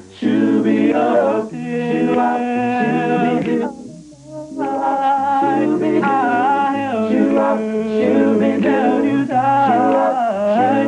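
Five-voice male a cappella group singing a doo-wop song in close harmony, a low bass part holding notes under a lead voice that slides and bends on top. The singing breaks off briefly about four seconds in, then resumes.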